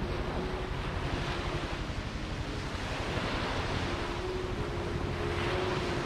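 Surf washing onto a sandy beach, swelling three times, with wind buffeting the microphone as a low rumble underneath.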